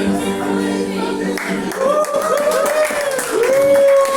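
Final acoustic guitar chord of a song ringing out for about a second and a half, then an audience starting to clap and cheer.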